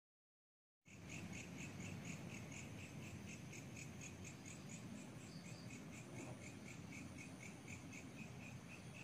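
Crickets chirping steadily, about three chirps a second, over a low background rumble; the sound cuts in about a second in after silence.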